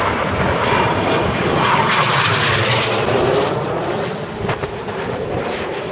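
Red Arrows BAE Hawk jets flying past, the jet engine noise swelling to a peak about two to three seconds in and then easing away as they pass.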